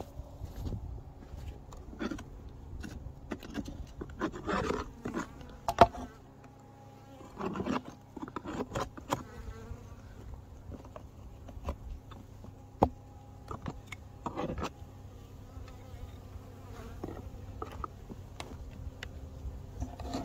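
Honey bees buzzing in a low, steady hum from an overwintered hive, showing that the colony is still alive. Scattered handling noises and a few sharp knocks sound over the buzz, the loudest about six seconds in and again near thirteen seconds.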